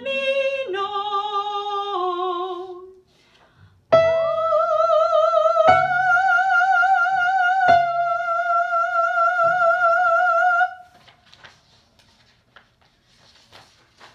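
A soprano voice singing the closing soprano line of an SATB choral arrangement with vibrato: a few short stepping notes, a brief pause, then a long held high note of about seven seconds over piano chords struck about every two seconds. The music stops shortly before the end, leaving only faint room noise.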